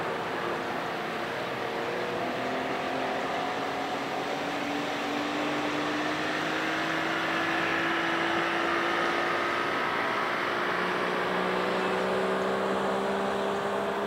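Two-stroke outboard motor running steadily, its pitch creeping slowly upward.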